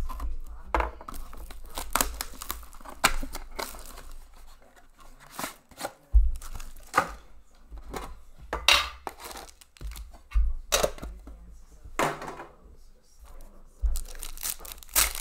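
Plastic shrink wrap being slit and torn off a sealed trading-card box and the inner pack wrapping handled: crinkling with sharp ripping sounds at irregular intervals.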